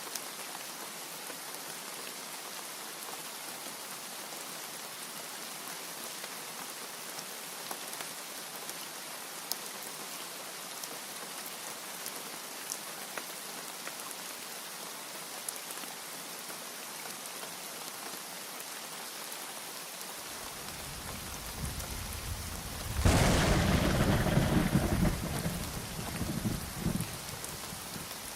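Steady heavy rain hissing, with scattered drop ticks. About twenty seconds in, a low thunder rumble builds, breaks into a loud clap a few seconds later, and rolls away over about four seconds.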